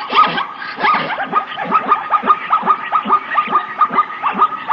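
Zebra barking: a rapid, continuous run of short, yelping calls, about five a second.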